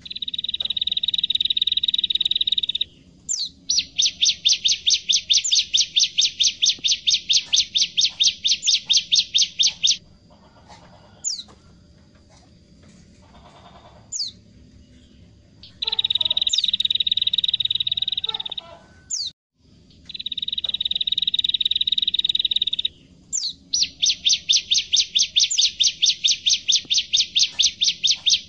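Ciblek (bar-winged prinia) singing loudly. Long, even, buzzy trills alternate with fast runs of sharp repeated notes, about five a second. A quieter stretch partway through holds only a few short high calls before the song resumes.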